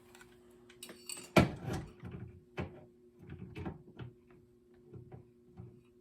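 Retail packaging of a carbon monoxide alarm being handled as it is opened: a sharp knock about a second and a half in, then a run of small clicks and scrapes, over a faint steady hum.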